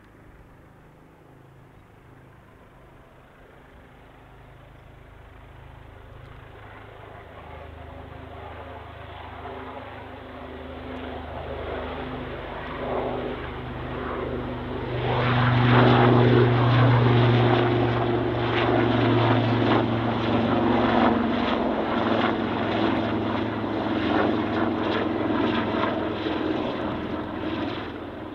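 AgustaWestland AW159 Wildcat helicopter flying low, its rotor and engine sound growing steadily louder as it approaches. It reaches its loudest about halfway through, when a fast, even beat of the rotor blades comes in and carries on as it passes close by.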